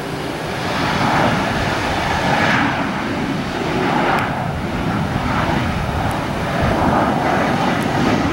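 Embraer ERJ-190 airliner's twin General Electric CF34-10E turbofan engines passing low on final approach with the gear down, a loud, continuous jet rush that swells and eases a few times.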